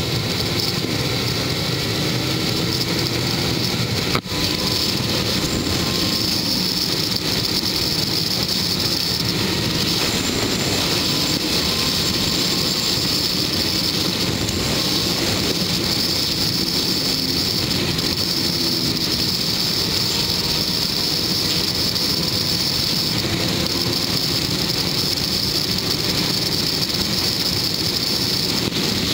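Motorcycle riding at highway speed: steady wind rush over the microphone with the bike's engine running under it, its pitch drifting slightly. A single sharp click about four seconds in.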